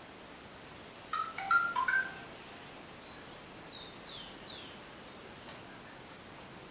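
Birds calling: a quick run of short, loud chirping notes about a second in, then several fainter, higher whistles that slide downward, over a steady background hiss.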